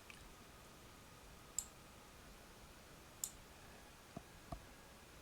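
Sparse clicks from computer use over near-silent room tone: two sharp clicks about a second and a half apart, then two softer taps near the end.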